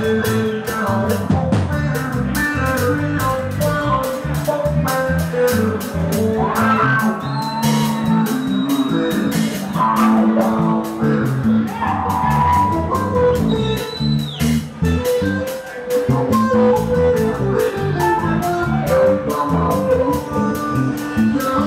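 Live rock band playing: electric guitars over a steady drum beat.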